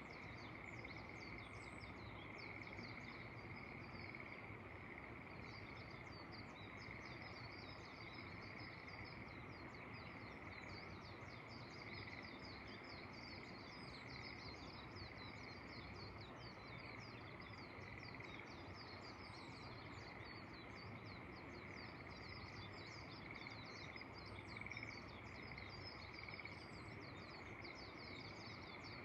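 A steady chorus of many frogs calling together in a dense, continuous mass of rapid calls, with a few brief high bird chirps now and then.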